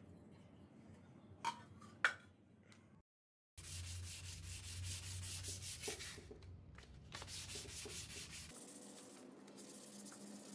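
Two sharp knocks, then, after a short gap, a wooden tool handle sanded by hand with a sheet of sandpaper: quick, rhythmic back-and-forth rubbing strokes.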